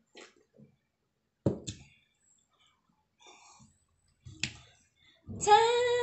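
A few soft sips from a ceramic bowl, a sharp knock about a second and a half in as the bowl is set down on the table, and a click a few seconds later. Near the end a woman's loud, long drawn-out sung exclamation starts and holds steady.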